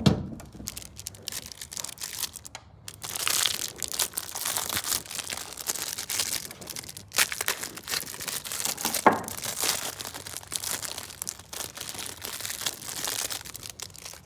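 Plastic bag crinkling and rustling as it is handled, in irregular bursts with a few knocks.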